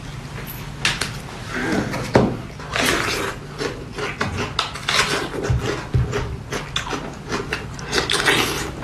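Eating sounds: irregular chewing, smacking and small crackling clicks, with a steady low hum underneath.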